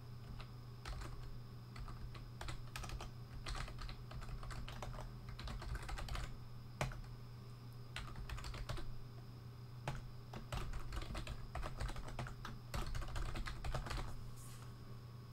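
Typing on a computer keyboard: runs of keystroke clicks with short pauses between them, over a steady low hum.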